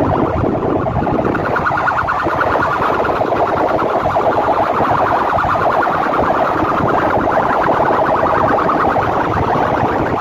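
Clusters of horn loudspeakers on a DJ sound-system rig blasting a loud, rapidly warbling siren-like electronic effect, harsh and distorted, without a break.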